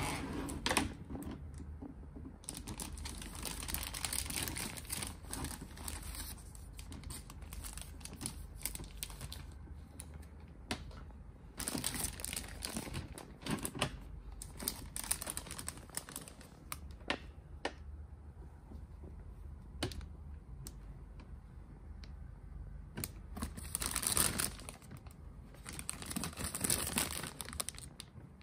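Clear plastic bag wrapping a vinyl figure crinkling and rustling as it is handled, in irregular bursts with small clicks and taps between them.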